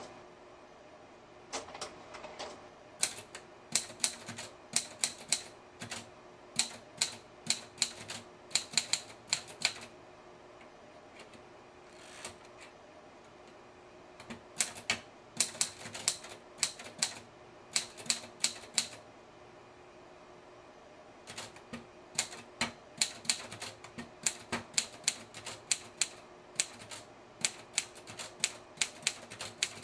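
Typewriter keys striking in quick runs of clacks, with pauses of a few seconds between bursts.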